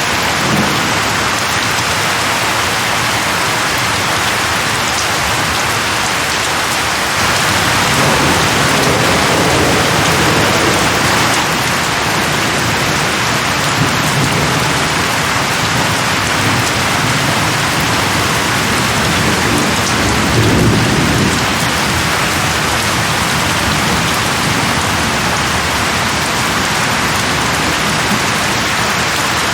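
Steady rain falling, an even hiss. Low thunder rumbles twice under it, once about a quarter of the way in for a few seconds and again about two-thirds through.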